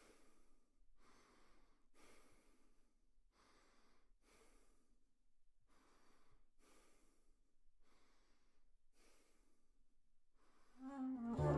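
A man's faint breathing, soft even breaths about one a second. Music comes back in near the end.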